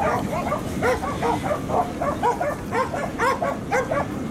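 Dogs barking in short, high yaps, about four or five a second without a break.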